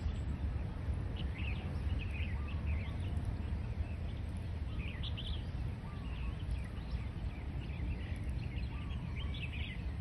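Outdoor ambience of many short bird chirps and calls, scattered and repeating, over a steady low rumble.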